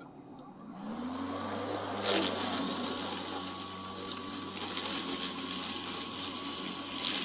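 An 80-volt battery electric lawn mower starts about a second in, its motor whine rising and settling into a steady hum as it runs on the mulching setting through tall wildflower growth. Two brief louder bursts come about two seconds in and near the end.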